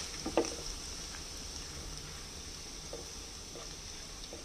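Chopped ginger and garlic with whole spices sizzling gently in hot oil in a non-stick pan, a steady light hiss. A couple of light clicks from the silicone spatula near the start.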